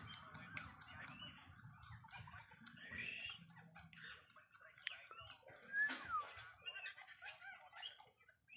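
Faint short bird calls, including a couple of quick gliding chirps, over many scattered small clicks.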